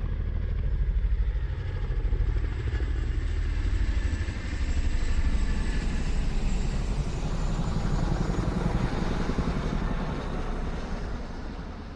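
A motor vehicle's engine running with a rapid low pulsing, growing a little louder through the middle and fading away near the end, as in a pass-by.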